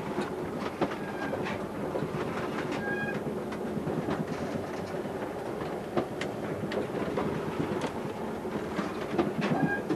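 A fishing boat's engine running in a steady rumble, heard inside the wheelhouse, with scattered knocks and rattles as the boat pitches through heavy seas.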